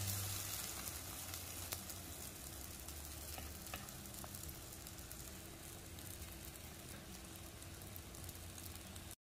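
Butter sizzling under a pancake in a nonstick frying pan: a quiet, steady frying hiss with a few small pops.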